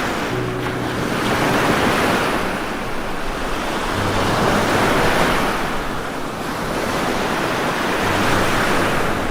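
Heavy rain falling: a steady rushing hiss that swells and eases every few seconds, with a faint low hum coming and going.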